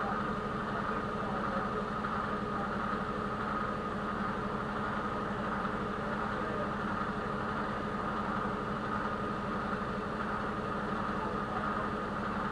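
HGV lorry's diesel engine running steadily, a low even drone.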